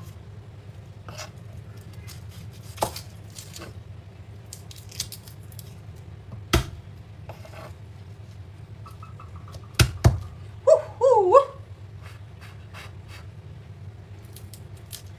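Scattered knocks and taps of kitchen prep at a cutting board, over a steady low hum, with a sharp double knock just before ten seconds in. Right after it a cat meows once, a short call with a bending pitch.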